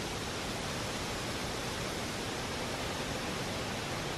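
Strong wind rushing steadily through the leafy canopy of the surrounding trees, an even hiss of noise with no breaks.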